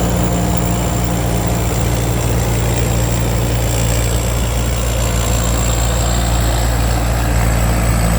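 Rice combine harvester running steadily while cutting a rice field: an even, deep engine drone with a thin steady high whine above it.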